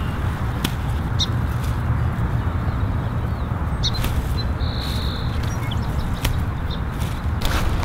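Steady low outdoor rumble, with a few short, high bird chirps and scattered light clicks.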